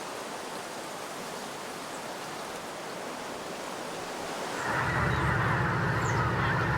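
A steady rushing noise, then about two-thirds of the way in a large flock of geese starts honking, much louder, a dense chorus of many birds calling at once.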